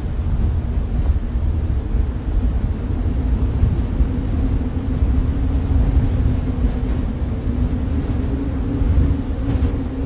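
Snowstorm wind ambience: a steady, deep rush of wind, heaviest in the low end, with a faint hum under it.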